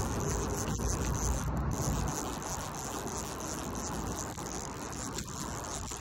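Night insects trilling steadily in a high, even chorus over a broad hiss, with a low rumble on the microphone that eases off about two seconds in.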